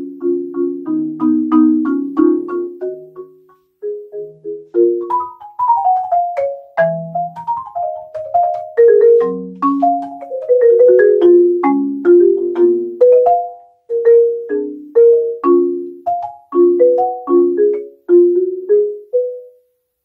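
Solo marimba played with mallets: quick runs of struck notes with a short break about four seconds in, then the piece closes on a final note that rings out and stops near the end.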